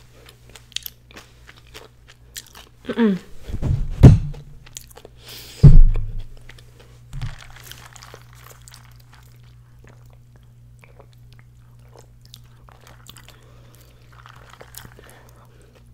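Close-miked eating sounds: chewing and mouth noises, with a few loud thumps about three to six seconds in. Near the end, soft sipping through a straw from a plastic cup.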